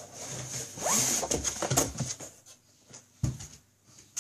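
Rustling and scraping of cardboard and plastic packing as a hand rummages through a shipping box, with one sharp knock about three seconds in.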